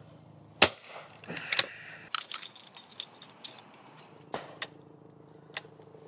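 An old Miroku over-and-under shotgun fires a sharp shot about half a second in, followed about a second later by a second, weaker crack. After that comes a scatter of lighter metallic clicks and knocks from the gun's action as it is handled.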